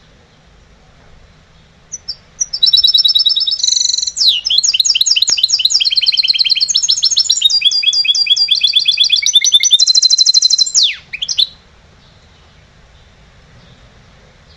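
Goldfinch × canary hybrid (mixto jilguero) singing its trained song: a long run of fast trills of repeated notes that switches to a new phrase every second or so. It starts about two seconds in and ends with a few short notes after about nine seconds of singing.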